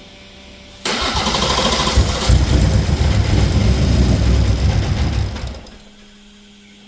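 BMW B58 turbocharged inline-six cranked on the starter for about five seconds without staying running, stopping about five and a half seconds in. It won't start because it is overfueling and has fouled its spark plugs.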